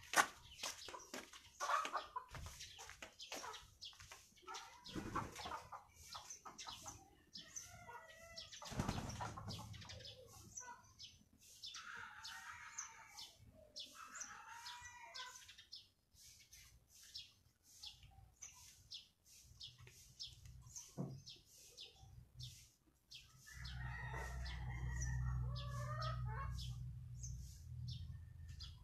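A chicken clucking now and then amid rustling and handling clicks, with a low rumble in the last few seconds.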